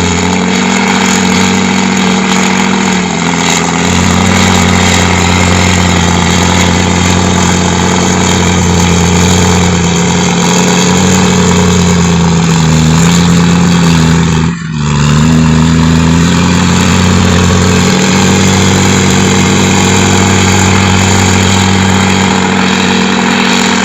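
Komatsu heavy-equipment diesel engine running steadily at speed, its note sagging slightly in pitch a few times, with one brief drop in level about fifteen seconds in.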